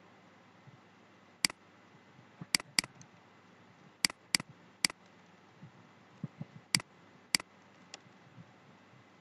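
Computer mouse clicks and keyboard keystrokes while editing a database table: about nine sharp, separate clicks at irregular intervals, some in quick pairs.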